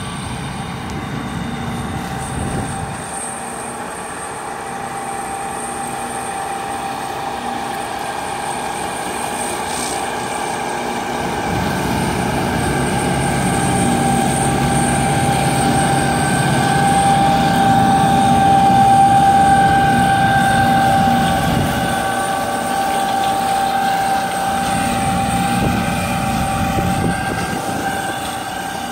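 Tractor engine working under load with a Vigolo TST280 flail mulcher's rotor spinning and mulching love grass: a steady whine over the engine's rumble. It grows louder as the machine passes close, about halfway through, then eases off as it moves away.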